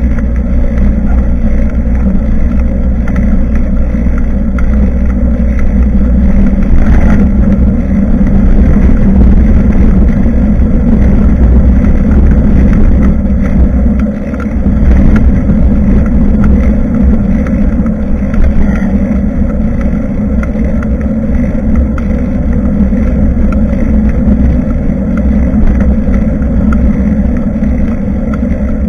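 Wind buffeting a bicycle-mounted action camera's microphone, mixed with rolling road rumble from the moving bike: a loud, steady low rumble that dips briefly about halfway through.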